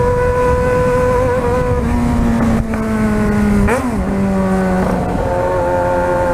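Yamaha XJ6 motorcycle's inline-four engine running at steady revs while riding, with wind rumble on the microphone. About four seconds in, the revs briefly rise and fall, then hold a little higher.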